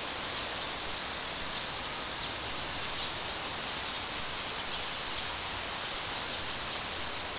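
Steady wind noise with rustling, and a few faint high chirps about two seconds in.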